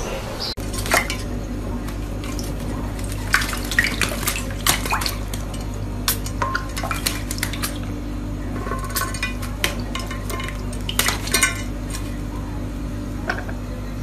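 Rainbow lorikeet bathing in a ceramic dish of water: splashing, with many sharp clinks and knocks against the dish, over a steady low hum.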